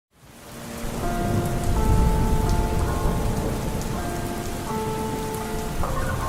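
Steady rain with a low rumble of thunder swelling around two seconds in, fading in over the first second. Under it, a slowed, reverb-drenched song begins with long held chords about a second in.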